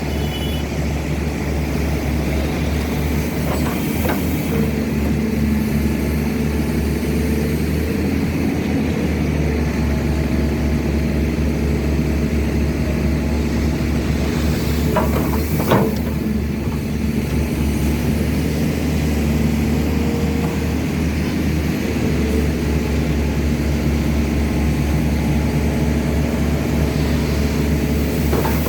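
SANY excavator's diesel engine running steadily under working load, with a few sharp knocks, the loudest about halfway through.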